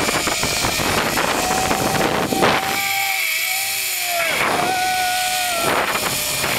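Wind rushing over the microphone while riding a zip line at speed, with a steady whine from the trolley pulleys running along the steel cable. The rush thins briefly about three seconds in, and the whine stands out more clearly.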